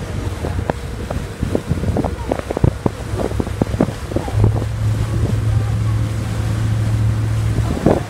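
Motor yacht under way: low engine drone with wind buffeting the microphone and water rushing along the hull. Scattered knocks in the first half, then a steady, louder low hum from about four seconds in.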